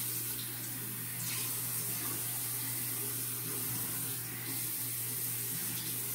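Tap water running steadily into a container, being filled with room-temperature water.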